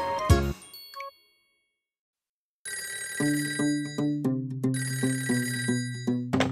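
Cartoon telephone ringtone: a bright electronic ringing pattern that repeats about three times a second, starting about two and a half seconds in. Before it, a music jingle ends with a short chime, followed by a moment of silence.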